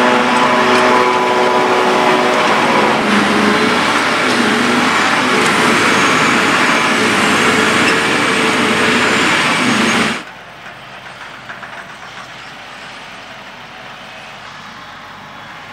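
John Deere self-propelled forage harvester working flat out chopping grass for silage: loud steady engine and chopper noise, with a whine of several steady tones that fades out in the first three seconds. About ten seconds in it cuts abruptly to a much quieter, duller engine sound of a tractor towing a silage trailer in the distance.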